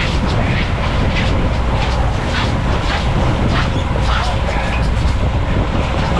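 Offshore fishing boat's outboard engines running steadily with a low rumble, under wind and water noise with short repeated splashes and spray.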